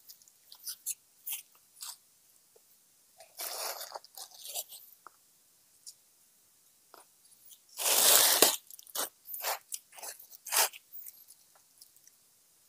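Close, irregular crunching and rustling handling noises, short and scattered with quiet gaps; the loudest is a longer rustle about eight seconds in.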